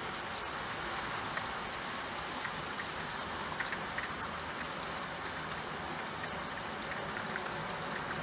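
Steady rain with a dense, even hiss and scattered individual drops ticking.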